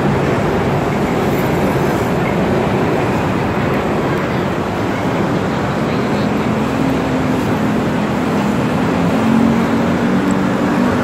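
Steady, loud street traffic noise from cars and motorbikes. About two thirds of the way through, a low engine hum comes up as a car passes close by.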